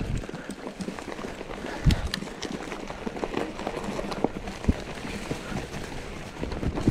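Trek Fuel EX 7 full-suspension mountain bike ridden over rough forest trail: steady tyre and rushing noise with frequent clatter and knocks from the bike, and two sharper thumps about two and nearly five seconds in.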